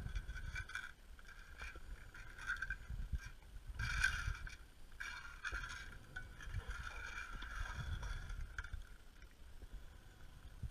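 Underwater scuba breathing heard through a camera housing: a regulator's hiss and rumbling bubble exhalations that come and go every few seconds, the loudest about four seconds in.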